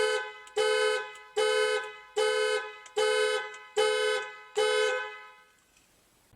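Car alarm sounding the car's horn in a steady series of seven honks, each starting sharply and fading away, about 0.8 s apart, before it stops.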